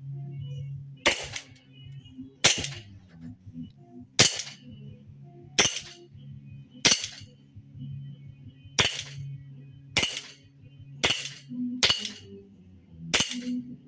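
Sig Sauer We The People 1911 CO2 BB pistol firing ten sharp shots, spaced unevenly at about one to one and a half seconds apart.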